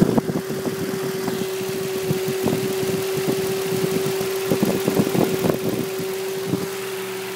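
Steady buzz from a 2005 Nissan Xterra, held on one unchanging pitch, with irregular rattling over it that stops a little before the end.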